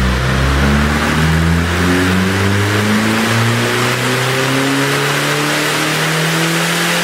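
Mini Cooper S's turbocharged 1.6-litre four-cylinder engine pulling at full throttle on a chassis dynamometer, its revs climbing slowly and steadily through the whole pull.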